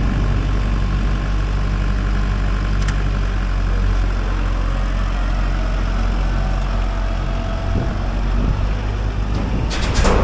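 Case IH Farmall 45A tractor's diesel engine running steadily while its front-end loader carries a steel grain hopper. A brief, loud burst of noise comes near the end.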